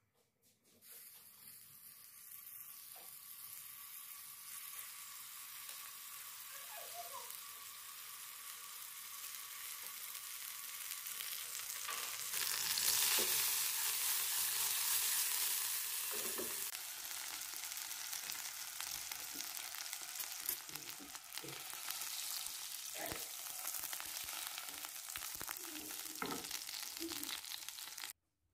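Butter and sugar sizzling in a hot nonstick frying pan as they melt into caramel. The sizzle builds and is loudest around the middle, with occasional light clicks, and cuts off suddenly near the end.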